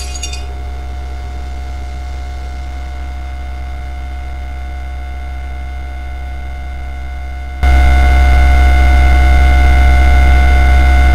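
A steady, unchanging low droning hum with a few faint steady high tones over it. About seven and a half seconds in it abruptly becomes much louder, then holds steady.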